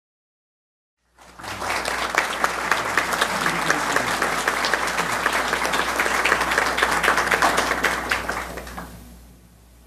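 Audience applauding, a dense patter of many hands clapping that starts abruptly about a second in and dies away near the end.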